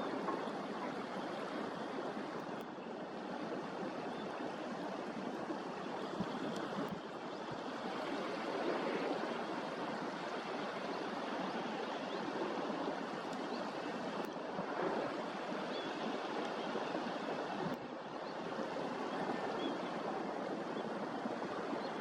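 Sea waves washing on the shore: a steady, even rush of surf.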